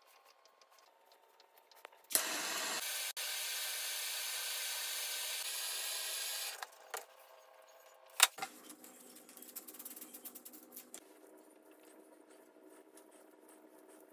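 Bernzomatic handheld gas torch lighting and burning with a steady, loud hiss for about four seconds, then shutting off. A sharp knock follows, then faint handling sounds.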